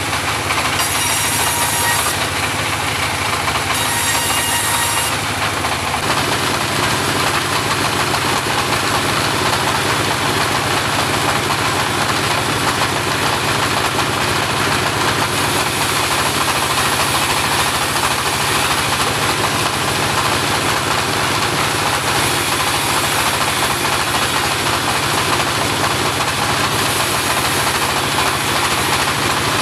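Engine of a homemade portable bandsaw sawmill running steadily, with thin high whining tones coming and going in the first few seconds.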